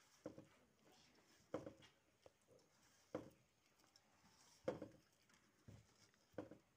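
Fingers pressing and mashing a chopped green-chilli mixture against a steel plate by hand: faint soft squishing presses, about six spread over several seconds.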